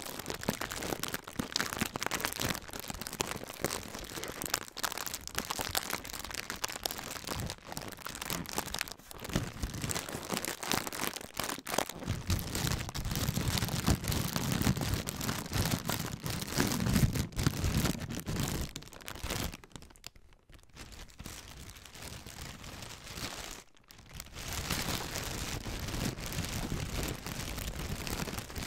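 Thin plastic packaging crinkled and squeezed in the hands close to a microphone: dense, continuous crackling, heavier and fuller a little before the middle, easing off to a quieter patch about two-thirds of the way through before picking up again.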